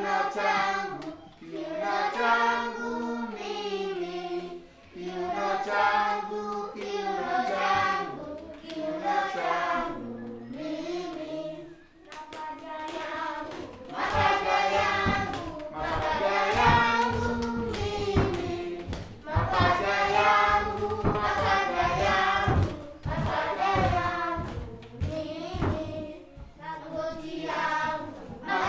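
A group of young children singing a song together in unison, with a rhythmic knocking beat joining in from about halfway through.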